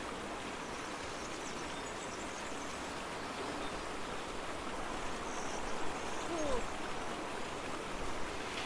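Steady rushing of flowing water, like a stream, with a faint short rising call about six and a half seconds in.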